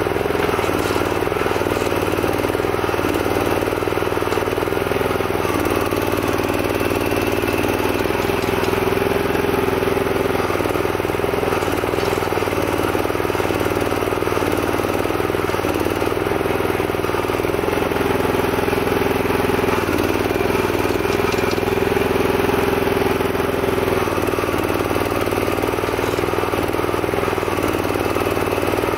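Homemade mini excavator's 11-horsepower Honda-type petrol engine running steadily while it drives the belt-driven hydraulic gear pump during digging. Its note dips briefly every few seconds as the hydraulic levers are worked.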